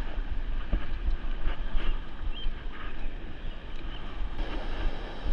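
Wind buffeting the microphone outdoors: a steady rushing noise with a gusty low rumble.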